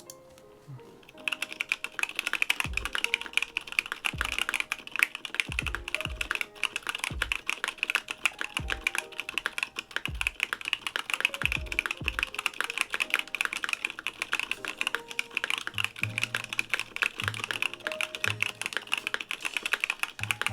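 Fast continuous typing on a Monsgeek M5 mechanical keyboard with Gateron North Pole 2.0 tactile switches and see-through keycaps, a dense run of key clacks that starts about a second in, over background music.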